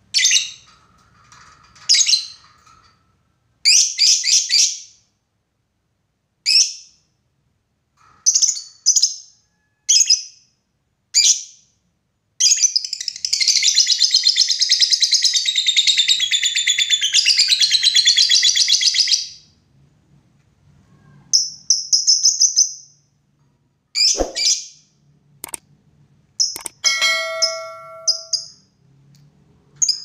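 Lovebirds calling: shrill, sharp calls every second or two, and in the middle one long, fast, unbroken chattering trill of about seven seconds, the 'ngekek panjang' song that bird keepers use to provoke other lovebirds into calling.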